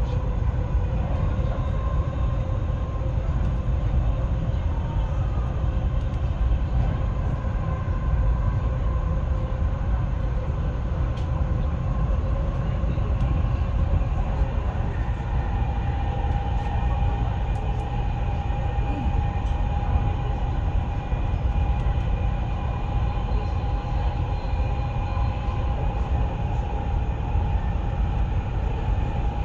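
Dubai Metro train running between stations, heard from inside the carriage: a steady rumble with a steady whine that grows a little stronger about halfway through.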